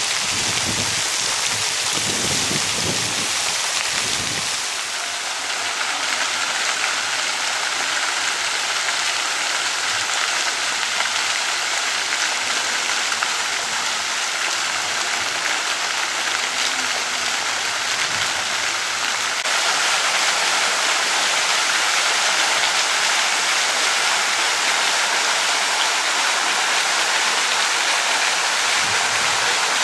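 Steady rush of running, splashing water, with a few low thuds in the first four seconds and a little louder from about twenty seconds in.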